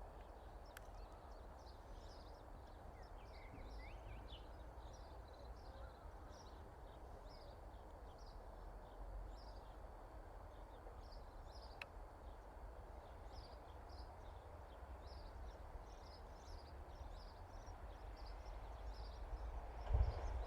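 Small birds chirping in short, frequently repeated calls over a faint steady hum of distant road traffic, with one low bump near the end.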